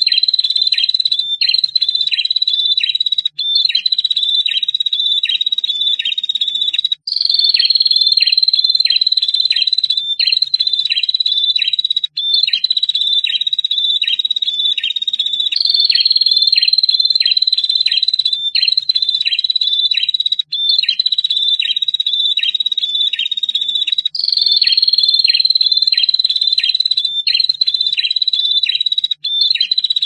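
Prinias (prenjak), male and female, calling: a continuous high trill (the long 'ngetir') with quick sharp notes about three a second, in phrases of a few seconds that break off briefly and start again.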